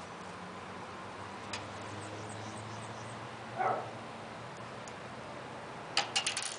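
A quick run of about five sharp metallic clicks near the end: a small screw dropped and bouncing in the computer case while the motherboard is being screwed in. Before it, a faint steady hum and one brief squeak about halfway through.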